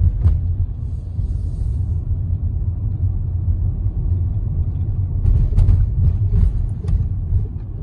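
Low, steady rumble of a car's road and engine noise heard from inside the cabin as it drives slowly, with a few faint sharp clicks.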